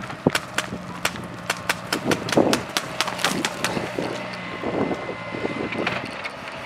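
Boots crunching and scrambling on loose rocks and gravel as a person runs and drops prone, with many irregular sharp clicks and a few heavier crunches.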